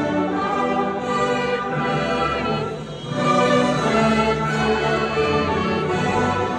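Brass band and choir performing a carol in a reverberant church, with held chords. The music dips briefly about three seconds in, then comes back louder.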